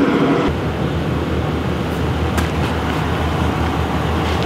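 Chevrolet pickup's engine idling: a steady low, evenly pulsing hum that cuts in about half a second in, with a couple of faint clicks.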